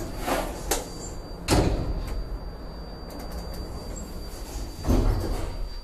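ThyssenKrupp machine-room-less traction elevator's sliding doors moving, with a thump about a second and a half in and another near the end, over a steady low hum.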